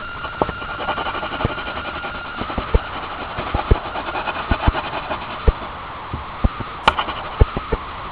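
Coloured pencil shading on paper: a steady scratching with many irregular sharp taps and clicks, over a constant hum.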